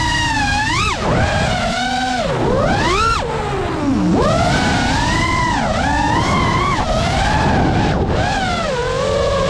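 FPV quadcopter's brushless motors and propellers whining, the pitch sweeping up and down about once a second as the throttle changes through freestyle flips and dives, over a steady rush of wind and prop wash.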